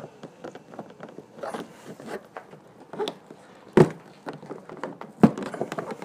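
Plastic armrest trim on a minivan's door panel being worked loose by hand: scattered small clicks and creaks, with two sharp knocks about four and five seconds in.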